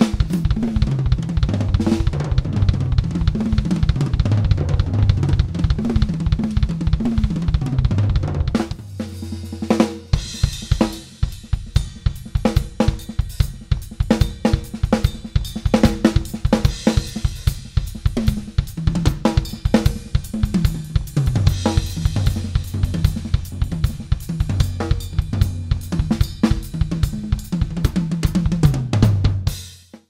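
Soo Custom New Fighter Series drum kit, with hybrid maple-and-birch shells, played through microphones: fills that run down the toms from high to low, cymbals and hi-hat over fast bass-drum strokes. About 9 s in the playing eases while a drum rings on, then resumes with rapid bass-drum strokes, and it cuts off suddenly at the end.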